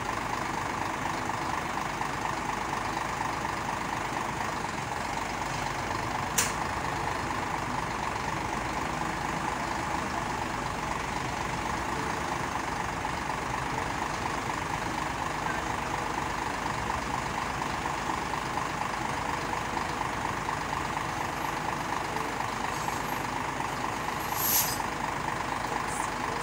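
Scania crane truck's engine running steadily to drive its truck-mounted hydraulic crane as the boom lifts a forklift, with a sharp click about six seconds in and a short burst of hiss near the end.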